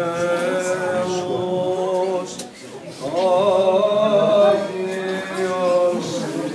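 Greek Orthodox Byzantine chant, sung in long drawn-out notes that bend slowly in pitch. It breaks off briefly about two and a half seconds in, then resumes.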